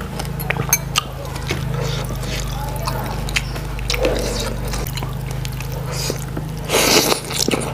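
Close-miked eating: wet chewing of soup and rice with many small mouth clicks, then a louder noisy burst about seven seconds in, all over a steady low hum.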